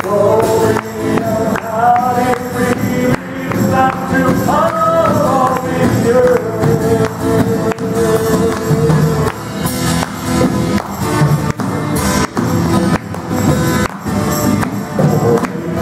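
Live worship music: acoustic guitar and hand drums playing under a sung melody.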